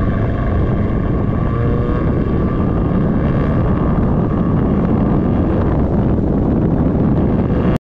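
Dodge Dart rally car on the move: engine running with its pitch rising slowly, under heavy wind and road noise. The sound cuts off abruptly near the end.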